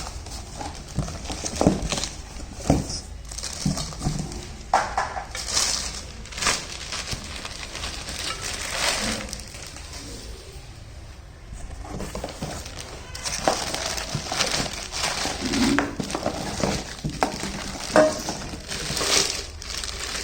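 Cookware being unpacked: packaging crinkling and rustling, with irregular knocks and clinks of steel pots and lids being handled.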